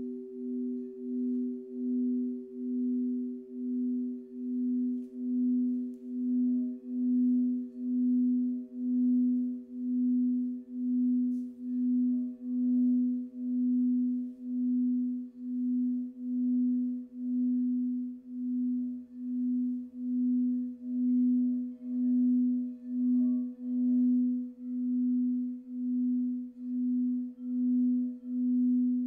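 Quartz crystal singing bowl played by rubbing a mallet around its rim: one sustained, pure low tone that pulses evenly, a little under twice a second. A second, higher bowl tone rings alongside and fades out about two-thirds of the way through.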